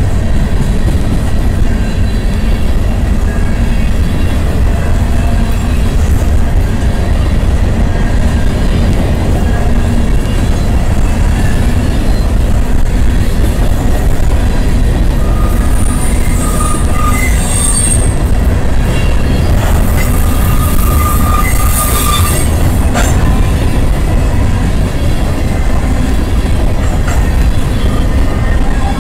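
Freight train of covered hopper cars rolling past at close range: a loud, steady rumble of steel wheels on the rails, with brief high wheel squeals partway through.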